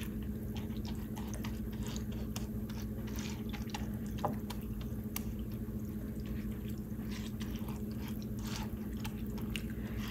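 Silicone spatula stirring and scraping soaked glutinous rice in its pandan and coconut-milk liquid in a glass baking dish: soft, scattered wet squishes and small clicks, with one slightly louder knock about four seconds in, over a steady low hum.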